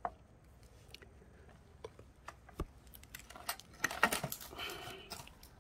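Scattered light clicks and rustles of hands handling a backpack brush cutter, its engine stopped. The handling grows busier between about three and five seconds in.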